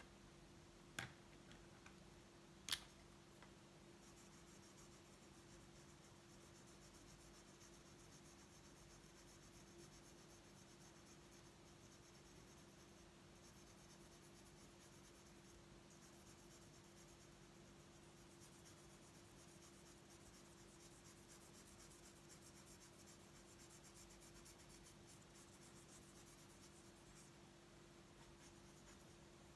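Faint scratching of a felt-tip marker colouring on paper, starting about four seconds in, after two sharp clicks as markers are swapped. A faint steady hum lies underneath.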